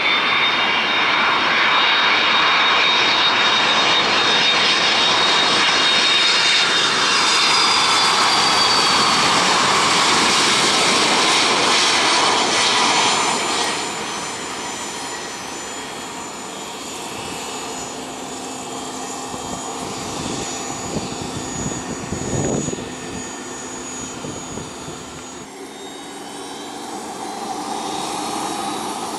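UPS Boeing 767-300ER freighter's twin turbofan engines passing close on final approach: a loud jet whine whose tones slowly fall in pitch, dropping to a quieter rumble as it lands. Near the end a softer, steady jet engine hum from a Cessna Citation 680A business jet taxiing.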